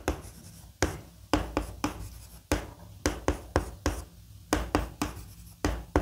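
Chalk writing on a chalkboard: an irregular run of sharp taps and short scratching strokes, about three a second, as characters are written.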